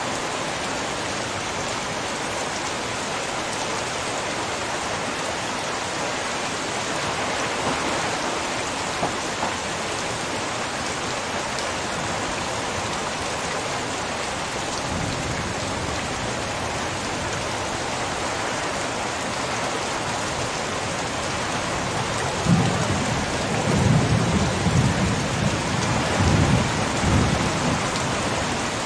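Heavy rain pouring steadily, an even hiss. A low rumble of thunder comes in about halfway through and is loudest, in uneven swells, over the last few seconds.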